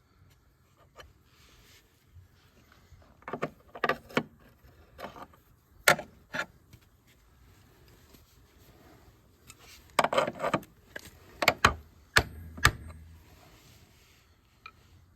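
Sharp clanks and clicks from tools and parts being handled while a sled bulkhead is prepared for welding. They come in bunches: several a few seconds in, one or two near the middle, and a quick run of them in the second half.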